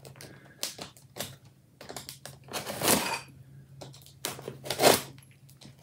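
A knife cutting through the plastic wrap and packing tape on a cardboard box: small scratches and taps, with two longer slicing rips about three and five seconds in.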